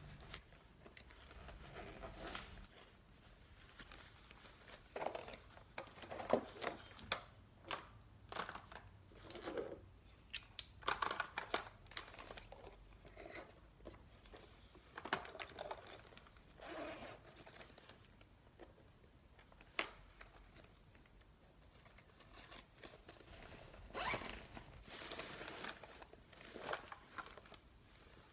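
Fabric makeup bag being handled: irregular rustling of the cloth and lining, with clicks and taps of makeup brushes and cosmetics as they are packed into it and the bag is gathered up.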